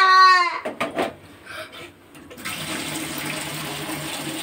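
A few light metal knocks as an aluminium saucepan of freshly boiled milk is taken off the gas stove. Then, from a little past halfway, a steady splashing pour as the milk goes from the pan into a ceramic mug.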